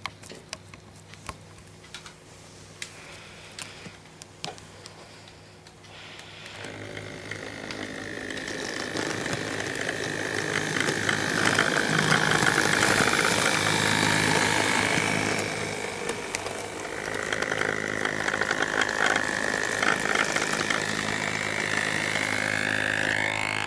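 HO scale model diesel locomotives running on the layout, including the Auscision B class. The first few seconds are faint, with scattered clicks over a low hum. From about six seconds in, the electric motor whine and wheel-on-rail rattle swell loud as the train passes close by, ease off briefly, then build again.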